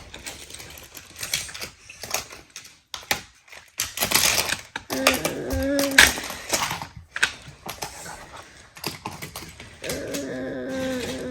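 Rapid plastic clicking and clattering of Hot Wheels die-cast toy cars and plastic track or playset pieces being handled and moved. A steady low hum comes in briefly about halfway through and again near the end.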